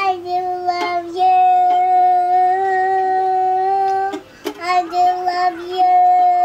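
A two-year-old child singing, holding one steady note for several seconds at a time and breaking off briefly about four seconds in, with light strums of a toy guitar.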